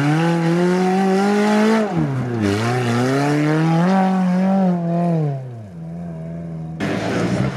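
Off-road 4x4's engine revving up and down under load as it climbs a steep bank, its pitch rising, dipping briefly and rising again, then falling to a low idle. About seven seconds in the sound changes abruptly to another engine running.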